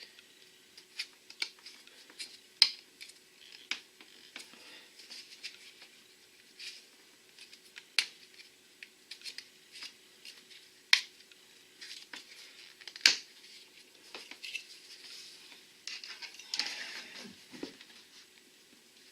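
Hard plastic parts of a kayak transducer mount clicking, tapping and scraping as they are handled and worked into a scupper hole: scattered irregular sharp clicks with light scratching between them, and a louder rustle near the end.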